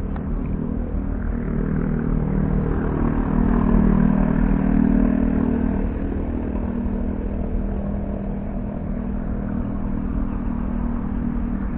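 A motor vehicle engine passing, its hum growing louder to a peak about four to five seconds in and then fading, over steady background traffic noise.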